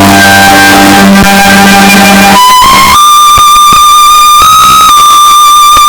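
Background music: low sustained notes, then from about two and a half seconds in a high held melodic tone over plucked strings.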